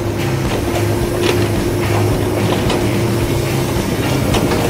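WL-Model radio-controlled toy excavator running its electric motors and gears with a steady whir and low hum as it slews its upper body and works its arm, with a few short clicks.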